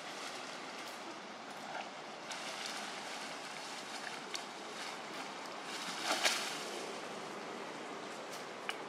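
Leaves and branches rustling and crackling as a long-tailed macaque climbs down through a leafy tree, over a steady outdoor hiss. The loudest rustle comes about six seconds in.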